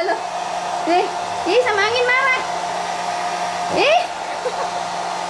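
Pitbull puppies whining in several short rising and falling cries, over a loud steady machine whir like a blower or fan.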